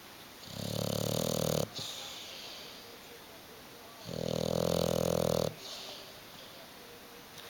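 English bulldog snoring in deep sleep: two long snores about three and a half seconds apart, each swelling and then cutting off sharply, with a softer, fading breath after each.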